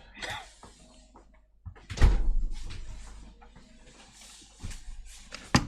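A woman's single loud wet cough about two seconds in, sudden and trailing off over about a second, the cough of bronchitis with tonsillitis. A sharp click comes near the end.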